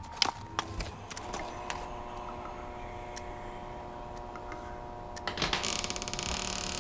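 Footsteps on wooden stairs, a few sharp knocks in the first second, over a steady eerie drone of held tones. Near the end comes a cluster of knocks, then a fast, even rattling click.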